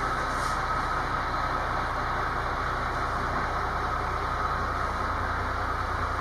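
Steady, unchanging drone of a truck crane's engine running.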